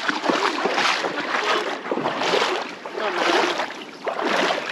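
River water rushing and lapping at the shallows, with wind buffeting the action-camera microphone, swelling and fading about once a second.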